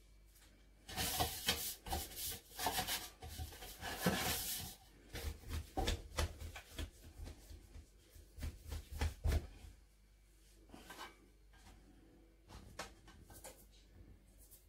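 Hand rubbing flour around the inside of a metal loaf tin, a dry scraping rub over about four seconds. Then come irregular handling noises with soft knocks as sourdough is worked and shaped on a floured worktop. These fade to a few faint rubs after about ten seconds.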